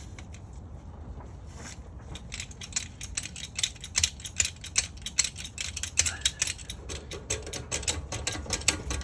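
Rapid metallic ratcheting clicks from hand tools at work on the trailer, sparse at first and coming several a second from about two seconds in, over a low steady hum.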